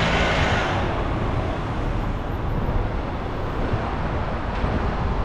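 Street traffic: a vehicle passes and fades away within the first second, leaving a steady low rumble of road traffic.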